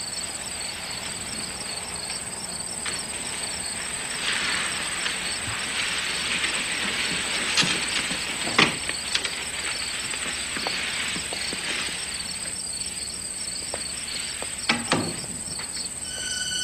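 Crickets chirping steadily under a high constant insect trill. A rustling hiss swells through the middle, and a few sharp knocks come about halfway through and again near the end.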